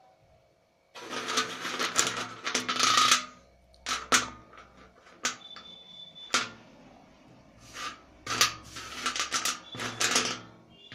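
Slate pencil being bitten and chewed: two dense bouts of crunching, about a second in and again near the end, with single sharp snaps between them.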